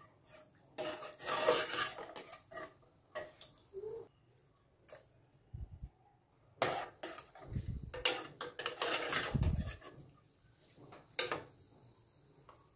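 Spoon stirring curry in an open metal pressure cooker pot, scraping and clinking against its sides in scattered short strokes, with a few dull thuds.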